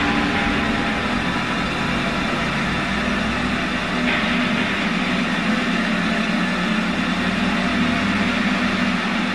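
Harsh electronic noise music: a dense, steady wall of static over a low droning hum, with a brighter hiss coming in about four seconds in.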